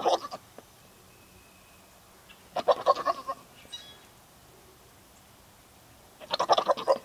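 A doe goat bleating in three short, stuttering bouts about three seconds apart. The bleating is part of the non-stop behaviour that a false pregnancy brought on in her.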